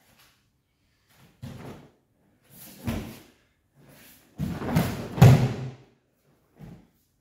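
Judo throw on tatami mats: a few thuds of feet and scuffling on the mat, then a loud slam of a body landing in a breakfall about five seconds in, with a smaller knock near the end.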